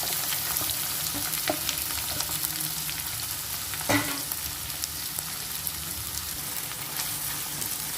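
Chopped onions and green chillies sizzling in hot oil in a kadai as they are stirred, a steady hiss with small scattered clicks. A single louder knock comes about halfway through.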